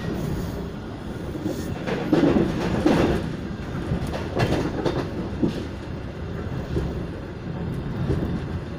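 Inside a moving passenger train carriage: the steady low rumble of the train running, with intermittent clattering knocks from the wheels and car.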